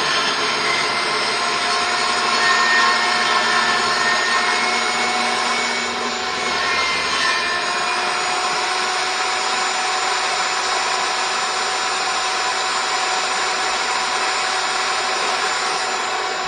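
Table saw running, its blade cutting a rabbet along a wooden board: a steady, loud saw noise whose tones dip slightly in pitch partway through as the blade takes load.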